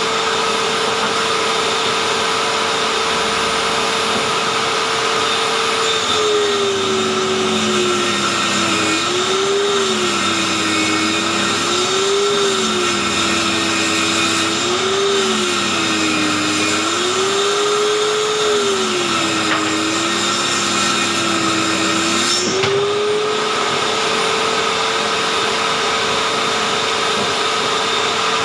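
Electric circular saw mounted under a homemade table, running as a rip saw: it runs at full speed, then its pitch drops and wavers for about sixteen seconds as the blade is loaded in the cut, and climbs back to full speed a few seconds before the end.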